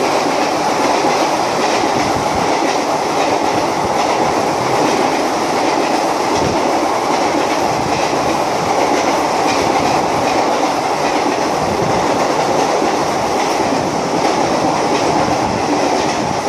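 Passenger coaches of an Indian Railways express train rushing past at speed: a steady rushing rumble with the wheels clattering over the rail joints, easing slightly near the end.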